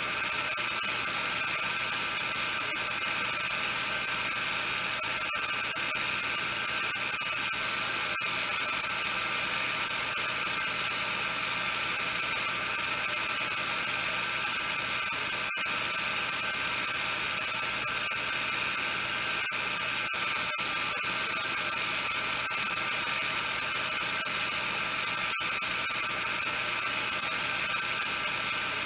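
A steady whirring hiss with several constant high tones and a few faint clicks, unchanging throughout.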